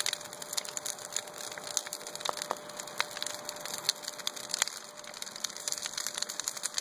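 A large bonfire of lumber boards and brush burning, crackling with many sharp, irregular pops.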